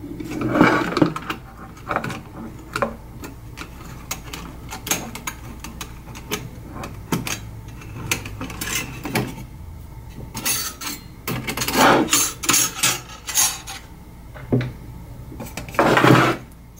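Small metal clinks, taps and rattles from handling an opened Amiga 500 Chinon floppy drive: its thin sheet-steel shield and a loose 3.5-inch disk shutter that had fallen inside the drive being worked out with a screwdriver and fingers. A run of light clicks, with louder clattering about two-thirds of the way through and again near the end.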